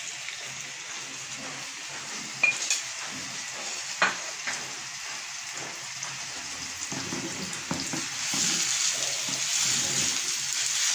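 Spice-marinated boneless chicken pieces sizzling in hot oil in a frying pan as they are put in and spread out by hand, the sizzle growing louder about eight seconds in. Two sharp clinks come a couple of seconds apart, early in the frying.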